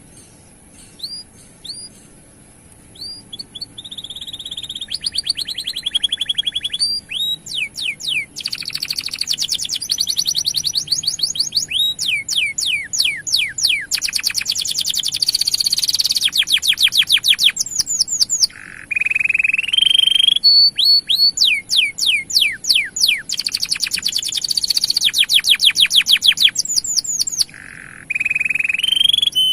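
Male canary singing a long, energetic song: a few single chirps, then long phrases of rapid trills made of repeated downward-sweeping notes mixed with held whistled tones, with a couple of brief pauses.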